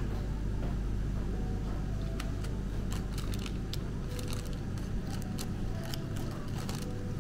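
Small plastic instant-soup sachets rustling and clicking as a hand sorts through them in an acrylic dispenser box, with a steady low hum of room ventilation underneath.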